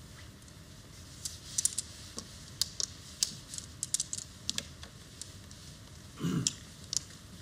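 Mahjong tiles clicking as players draw them from the wall and discard them onto the table: a scattered run of sharp clicks, thickest from about one to five seconds in.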